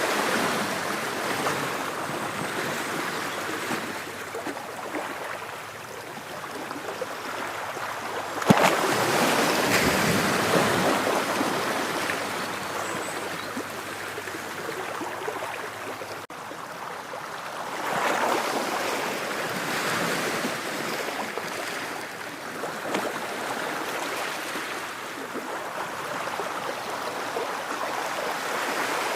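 Ocean waves surging and washing in slow swells. A sudden loud wave comes in about eight and a half seconds in, and another swell builds about ten seconds later.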